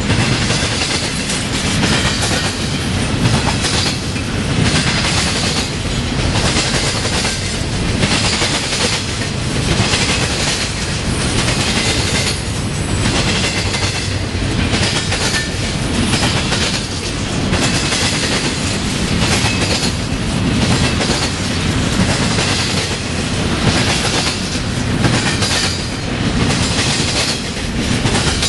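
Empty articulated intermodal freight cars rolling past, their steel wheels clacking rhythmically over the diamond where the line crosses another railroad, over a steady low rolling noise.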